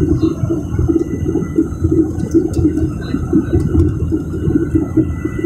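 Steady low roar of jet engines and rushing air heard inside the cabin of a Southwest Boeing 737 climbing after takeoff.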